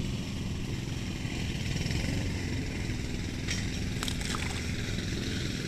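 Steady low outdoor rumble, with a few faint clicks about three and a half and four seconds in.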